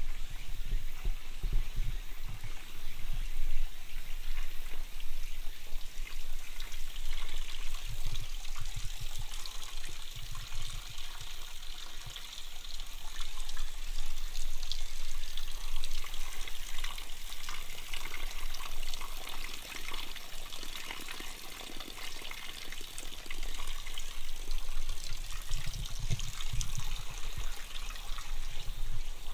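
Water from the bamboo spouts of a shrine temizuya purification basin, trickling and splashing steadily into the stone basin, with a few low thumps.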